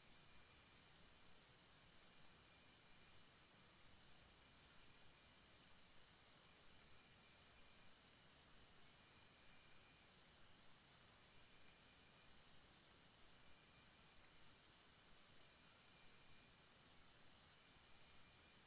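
Faint insect chorus: a steady, rapidly pulsing trill, with short high chirps now and then.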